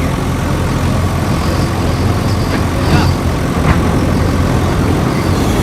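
Diesel engine of heavy earth-moving machinery running steadily, with two short knocks about three and three and a half seconds in.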